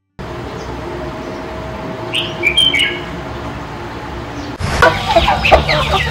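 Outdoor background hiss with a bird giving a short run of high chirps about two seconds in; about two-thirds of the way through, a busier, louder stretch of many short bird calls begins.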